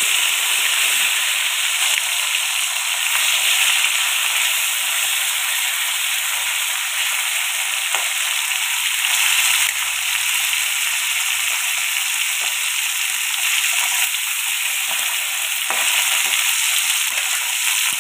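Small boriola fish shallow-frying in hot oil in a kadai: a steady sizzle with scattered little spits and crackles, and a spatula turning the fish now and then.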